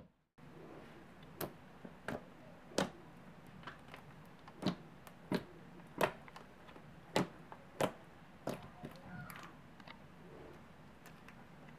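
Thick white slime with cereal pieces and sprinkles being squeezed and stretched by hand, making about a dozen sharp pops and clicks at irregular intervals.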